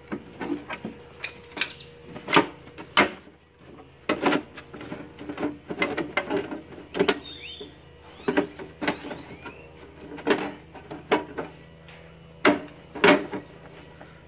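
Sheet-metal case of a Hypertherm Powermax 45 plasma cutter being handled and worked loose: irregular knocks, clicks and rattles of the metal panels and handle, a dozen or so sharp ones, the loudest near the end.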